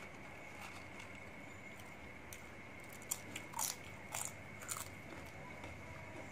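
Crisp purple chip bitten and chewed close to the microphone: about four sharp crunches starting about three seconds in.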